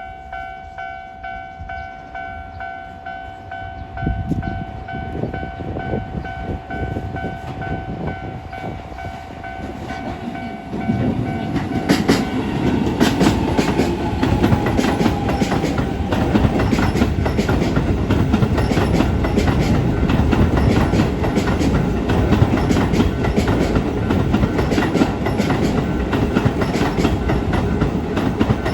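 Level-crossing alarm ringing a steady electronic bell. About eleven seconds in, a Keisei 3000 series electric train runs loudly through the crossing, its wheels clattering over the rail joints until the end.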